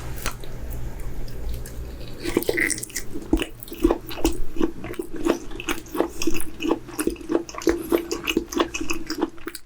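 Close-miked eating sounds: wet chewing and mouth clicks, several a second.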